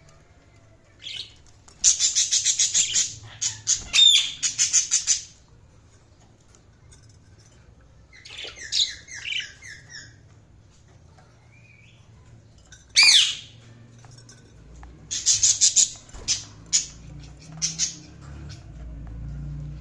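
Budgerigars chirping and squawking in bursts of rapid, harsh chirps separated by quiet gaps, with one loud single call about two-thirds of the way through.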